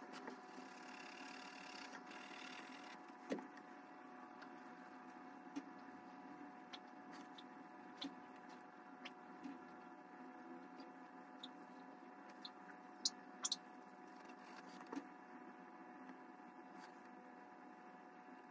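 Faint steady electrical hum, with scattered light ticks and a brief scratchy hiss in the first few seconds from a graphite pencil shading and crosshatching on paper.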